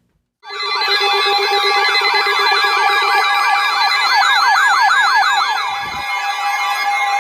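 Electronic alert sirens start suddenly about half a second in. Several fast rising-and-falling sweeps overlap over steady tones, and a lower warble drops out about three seconds in. The alarm heralds a new severe thunderstorm warning broadcast.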